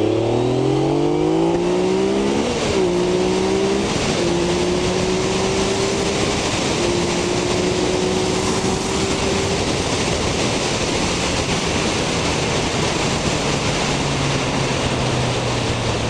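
Yamaha XSR900's CP3 inline-three engine accelerating hard from a traffic light. The pitch climbs, drops at an upshift about two and a half seconds in, climbs again, and drops at a second shift near four seconds. The engine then pulls steadily under heavy wind rush, and near the end settles to a lower, steady tone as the throttle eases.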